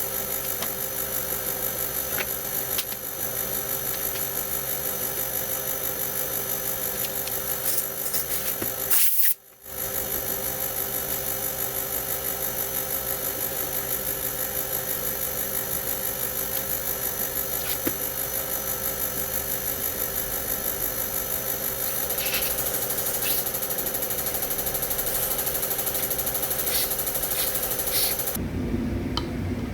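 Machinery running with a steady drone and several steady tones, cutting out briefly about nine seconds in and changing to a deeper sound near the end.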